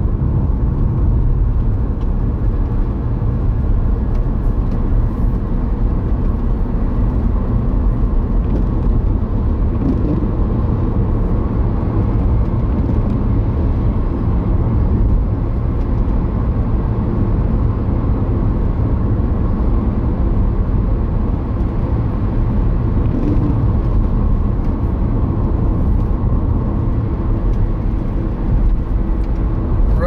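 Steady road and engine noise inside a moving car's cabin at cruising speed, a constant low rumble.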